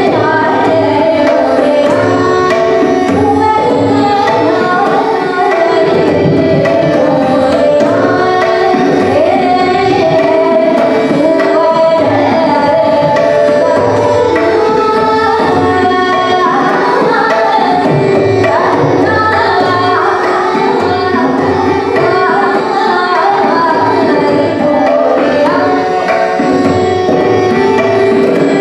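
Hindustani classical vocal music: a woman singing with tabla accompaniment over a steady held drone.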